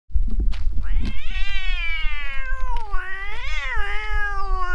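Stray cats squaring off to fight: one cat gives a long, unbroken yowl that starts about a second in, slides slowly down in pitch, swells up again midway, then sinks once more. This is the drawn-out threat cry of a cat fight.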